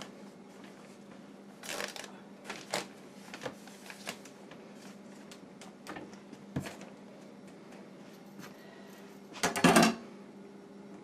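Irregular knocks, clicks and scrapes of a hand saw being handled against an opened wall framed in studs and OSB sheathing, with a louder brief clatter about nine and a half seconds in, over a steady low hum.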